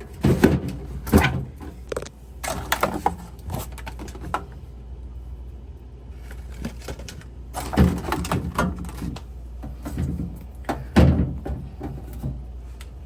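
Clunks, knocks and rattles of food containers and jars being handled and set down while a refrigerator is emptied out, with a quieter pause of a few seconds in the middle.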